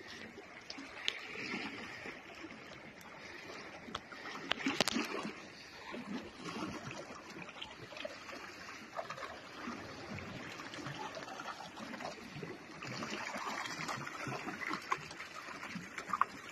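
Small sea waves washing and splashing against a rocky shore, with scattered light splashes and a louder wash about five seconds in.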